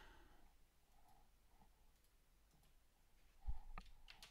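A few quiet computer mouse clicks, with a low thump about three and a half seconds in, followed by two sharper clicks.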